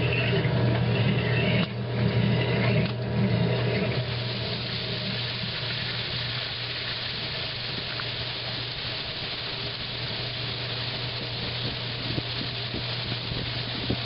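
1955 Blackstone washing machine running, with a low motor hum and water swishing around in the tub. About four seconds in the hum drops away, leaving a steady swish of churning water.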